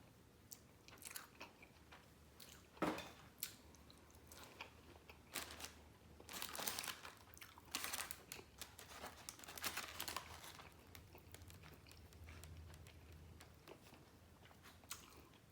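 Chewing and biting on fried chicken wings, stripping meat off the bone, with irregular crunches that come thickest in the middle.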